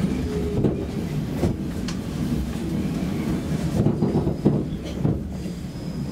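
Stockholm Metro C6 subway train rolling along a station platform, heard from inside the car as a steady rumble with a few sharp clicks from the wheels. A faint, high, steady wheel squeal sets in about two-thirds of the way through.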